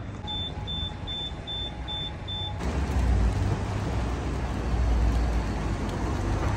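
Six short, high electronic beeps, about two and a half a second, over a street background; then, about two and a half seconds in, a louder low rumble of city traffic takes over.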